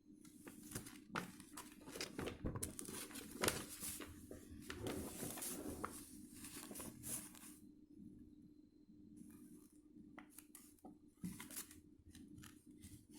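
Paper and packaging rustling and crinkling as they are handled, with many light clicks and taps. It is busiest for the first seven seconds or so and sparser after that.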